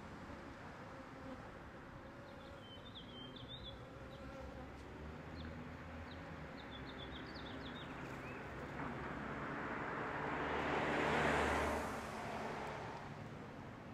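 Many bees buzzing around their nest, a steady low droning hum. A rushing noise swells and fades about eleven seconds in.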